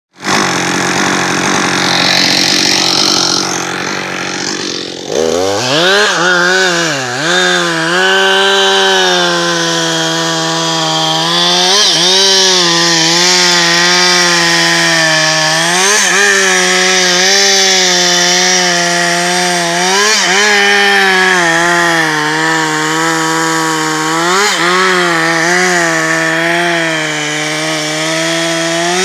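Two-stroke chainsaw running steadily, then revved up sharply about five seconds in and cutting into a beech trunk. Its engine note dips and recovers again and again as the chain bites into the wood.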